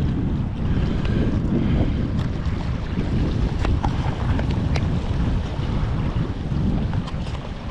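Wind buffeting the microphone: a dense, gusting low rumble, with a few faint clicks about two to five seconds in.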